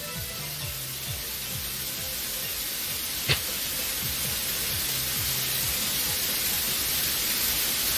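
A swelling white-noise riser, a hiss that grows steadily louder, building suspense over low background music, with a single short click about three seconds in.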